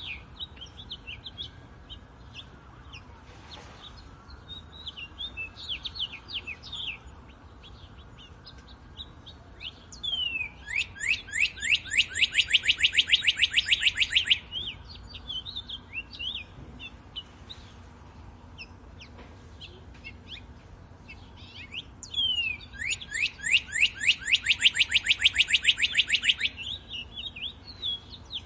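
Songbirds singing. One bird gives a loud, fast trill of quickly repeated sweeping notes twice, about ten and twenty-two seconds in, each lasting about four seconds, among softer scattered chirps from other birds.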